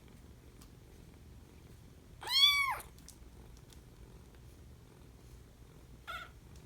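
A young kitten of about four to five weeks meows once about two seconds in, a high call that rises and then falls in pitch, and gives a short faint call near the end, over low steady purring.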